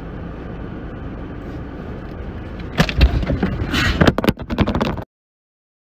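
Low, steady car-cabin rumble. About three seconds in comes a burst of loud thumps and rustling as a handbag is swung into the passenger and the phone filming is knocked about. The sound then cuts off suddenly.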